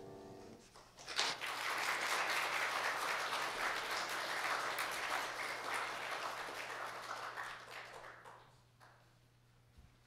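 The last violin and piano note dies away, then a church congregation claps in applause for about seven seconds, tapering off near the end.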